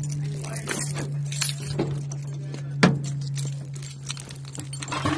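Light clinks and knocks from gear and the phone being handled, with one sharp knock about three seconds in, over a steady low hum.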